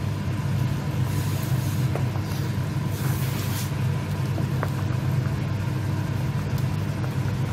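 A steady low hum runs throughout. Over it come a few faint clicks and two brief swishes as a wooden spoon stirs and lifts soup in a steel pot.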